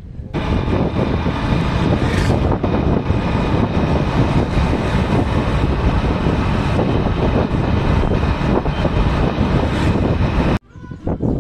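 Wind buffeting the microphone over the engine and road noise of a moving vehicle, heard from its open cargo bed: a loud, steady rush that cuts off suddenly near the end.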